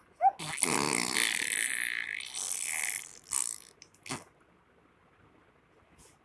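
A small child's noisy vocal play: a short rising squeak, then about three seconds of a rough, buzzing, burp-like sound, followed by two short clicks.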